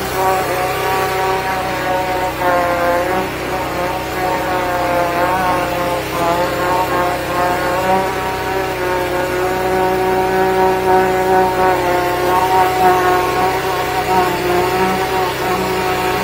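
13-horsepower engine of a high-pressure sewer jetter running steadily under load. Its pitch dips briefly about two and a half seconds in and again about six seconds in.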